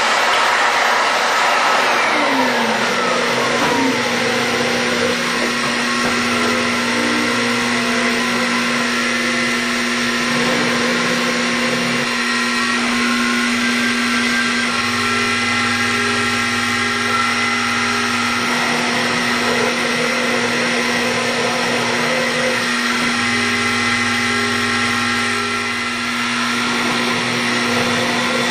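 X2 mini mill's spindle motor running steadily while its end mill cuts into half-inch UHMW plastic. A whine glides down in pitch about two seconds in. Higher tones come and go in stretches as the cutter moves through the cut.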